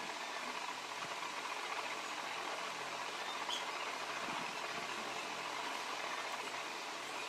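Steady background hiss with a few faint humming tones, even throughout.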